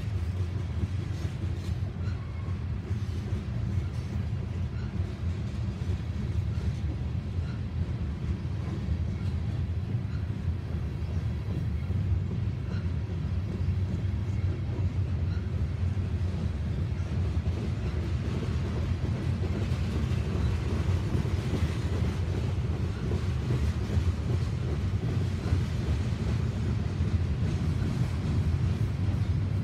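Norfolk Southern freight train of covered hopper cars rolling past, its steel wheels on the rails making a steady low rumble.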